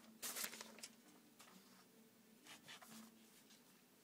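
Near silence with faint paper handling: a soft rustle of paper sheets shortly after the start and another about two and a half seconds in, over a faint steady low hum.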